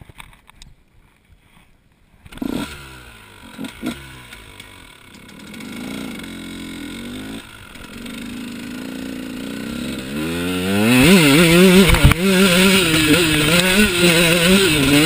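2013 KTM 150 XC two-stroke single-cylinder dirt bike engine. After about two quiet seconds it runs at low revs with the pitch wandering. From about ten seconds in it gets much louder as the bike pulls away, the revs climbing and dropping again and again under throttle.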